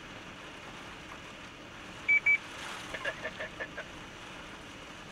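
Two short, high electronic beeps in quick succession about two seconds in, over a steady rushing background of wind noise.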